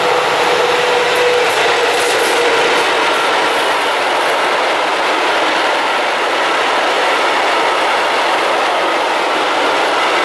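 Freight train of open coal wagons behind a Škoda class 183 electric locomotive passing close by: a steady loud rumble and clatter of wheels on the rails. A held whine sounds for the first two or three seconds as the locomotive goes by.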